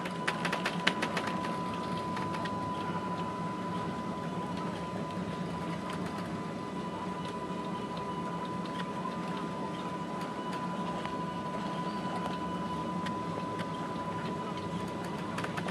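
Steady low hum of a ship's machinery heard on the bridge while under way, with a constant high-pitched whine from equipment over it. A few sharp clicks sound in the first second or so.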